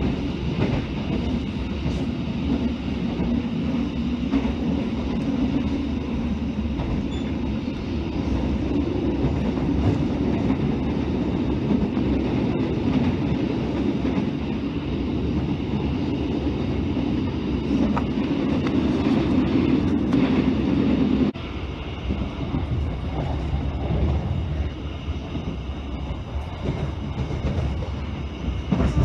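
Steady rumble and rattle of a passenger train's carriage running along the rails, heard from inside the carriage. The noise drops abruptly in level about two-thirds of the way through.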